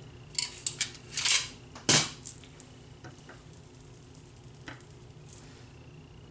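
Makeup brushes and containers clattering as someone rummages through them for a brush: a run of clicks and knocks in the first two seconds, the loudest a sharp knock about two seconds in, then only a few faint ticks.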